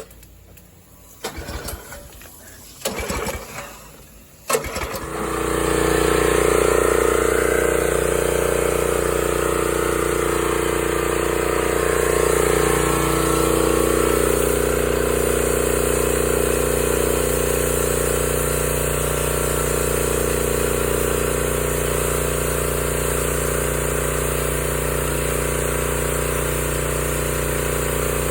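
A gasoline pressure washer engine starts up about five seconds in, after some brief clatter, then runs steadily.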